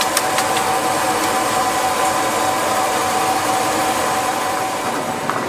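Chocolate tempering and enrobing machine running: a steady whirring noise with a constant tone through it.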